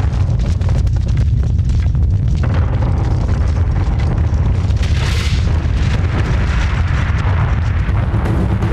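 Loud, steady deep booming rumble from a show's sound system, with a hissing swell that rises about two and a half seconds in and is strongest about five seconds in.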